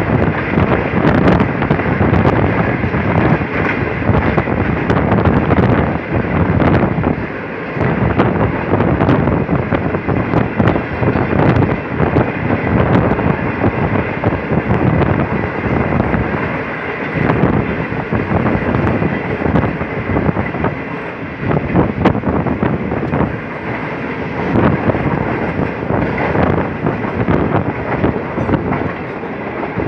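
Wind buffeting the microphone at the open window of a moving passenger train, over the steady running noise of the coaches on the track. The loudness rises and falls unevenly, with a few short dips.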